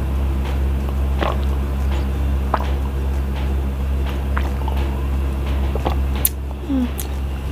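Swallowing and small gulping sounds from drinking flavoured milk out of a plastic cup, over a steady low hum. Near the end come a couple of sharp clicks as the cup is lowered.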